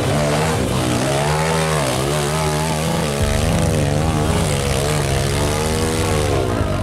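Motorcycle engines running at a hill climb: a steady low engine note, with an engine revving up and down over it again and again, its pitch rising and falling.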